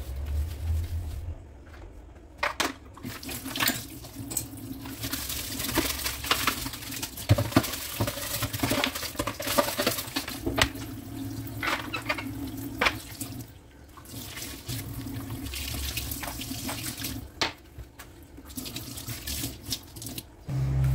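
Kitchen tap running into a stainless steel sink while the basin is scrubbed with a sponge, the water flow coming and going, with scattered knocks and clicks of handling.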